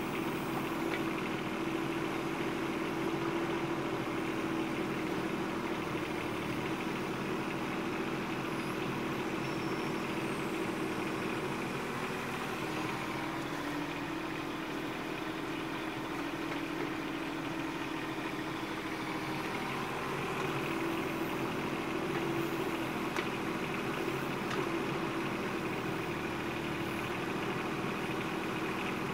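Bobcat 418 mini excavator's diesel engine running steadily as it digs. Its pitch sags briefly about halfway through and again later as the hydraulics take load, then recovers.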